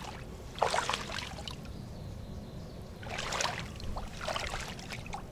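Shallow water splashing and sloshing in a few short bursts, about a second in and again around three to four and a half seconds in, over a steady low rumble.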